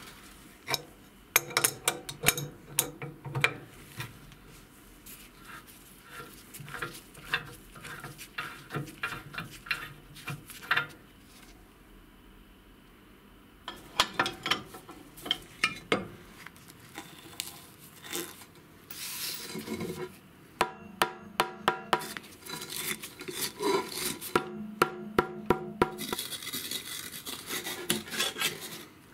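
Hand work on metal: scraping and rubbing broken by many sharp clicks and taps, with the sound changing abruptly several times.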